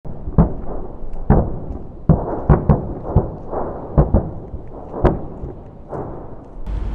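Distant artillery explosions over a city: about a dozen booms in quick, irregular succession, each with a low rolling echo.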